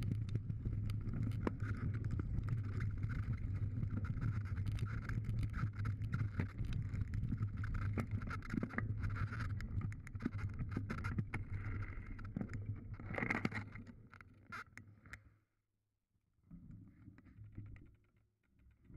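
Mountain bike riding fast down a loose stony trail: a steady rumble and crunch of tyres on gravel, with many small clicks and rattles from stones and the bike. The noise drops away sharply about fifteen seconds in, leaving only faint rattling.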